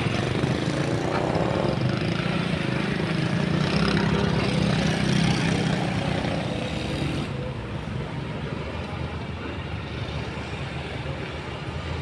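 Diesel engines of a crawler excavator and a bulldozer running steadily as they work soil. The hum is louder in the first half and eases off about seven seconds in.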